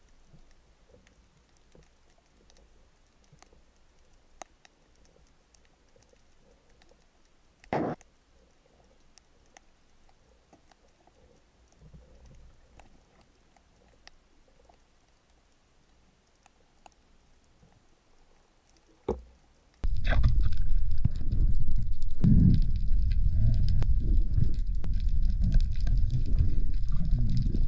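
Underwater sound: faint scattered ticks and crackles, with a brief louder scrape about eight seconds in and a short knock near nineteen seconds. About twenty seconds in it changes abruptly to loud, low, churning water noise buffeting the camera as the diver moves through the water with the speargun.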